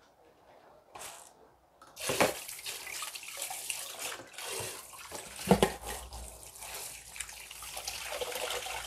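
Water running from a tap into a sink, turned on abruptly about two seconds in and running steadily, with a dull knock partway through.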